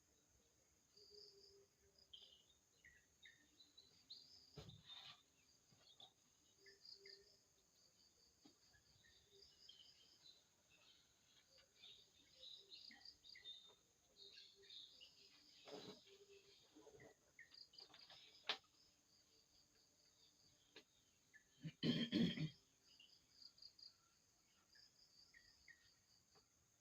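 Faint night insects chirping in short repeated trills, with a few scattered clicks and one louder, brief rough burst of noise about three-quarters of the way through.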